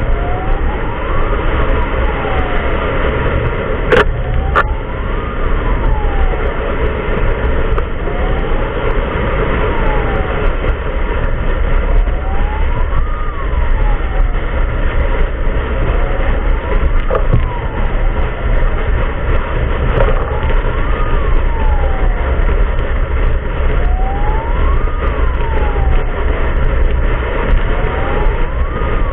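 Emergency-vehicle siren wailing, slowly rising and falling about once every four seconds, over heavy low road and wind rumble. Two sharp clicks about four seconds in.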